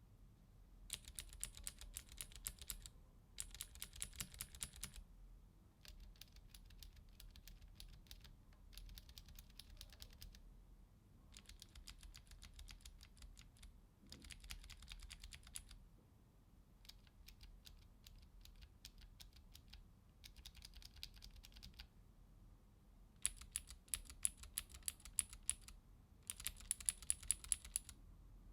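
Mechanical keyboard with Cherry MX clicky switches (Green, then White, then Blue) being typed on in short bursts of rapid keystrokes, each key giving a sharp click. The bursts are separated by brief pauses, and the last two are the loudest.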